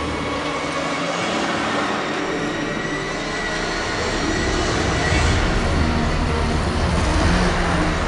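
John Deere 8295R tractor's six-cylinder diesel engine running under load while pulling a ten-furrow Lemken plough through stubble; its low drone grows louder about five seconds in as the tractor comes closer.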